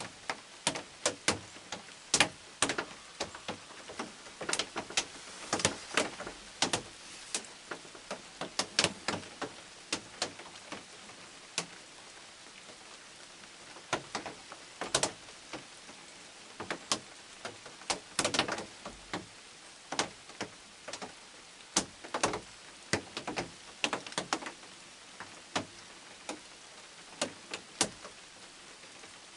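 Rain dripping onto a nearby hard surface: irregular sharp ticks of single drops, several a second at times, over a soft steady hiss.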